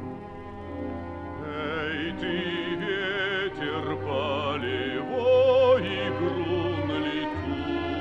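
Orchestral passage between sung verses: a slow melody with wide vibrato over sustained low chords, loudest a little past the middle.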